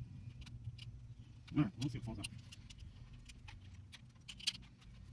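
Scattered light clicks and small rattles as gloved hands handle the electrical connectors and bolts on a 6T45 transmission's valve-body control unit, over a steady low hum.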